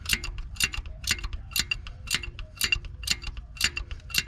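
19 mm ratcheting wrench clicking in a steady rhythm, about two strokes a second with lighter clicks between, as it tightens a new coolant temperature sensor into the engine.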